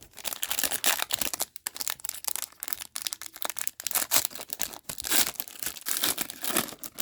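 Trading-card pack wrapper crinkling and tearing as the pack is opened by hand, a dense, irregular crackle that keeps going throughout.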